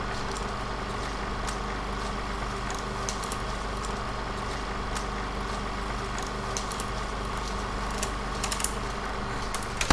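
Old-film sound effect: a steady motor-like hum with irregular crackles and clicks, like a film projector running. It cuts out at the end.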